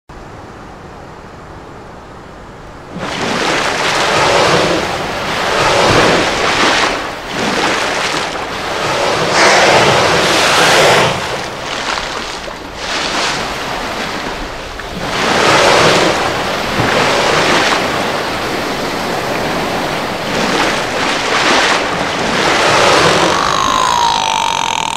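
Ocean-wave sound effects surging and washing in loud swells, starting about three seconds in after a quieter hiss. Near the end a drawn-out call that falls in pitch, a killer whale call effect, comes in as the virtual orca leaps.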